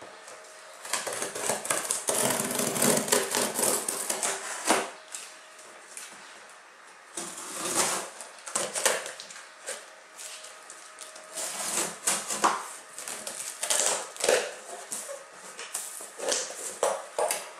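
Packing tape being cut and peeled off the top of a cardboard box, then the cardboard flaps rustling and scraping as they are pulled open, in irregular bursts with short pauses.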